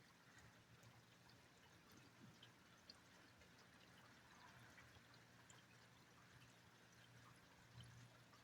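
Near silence: faint rain dripping and pattering, with a low steady hum underneath.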